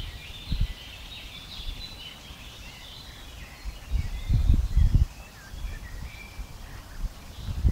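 Several birds chirping and calling. Low gusts of wind buffet the microphone about half a second in, more strongly around four to five seconds in, and again near the end.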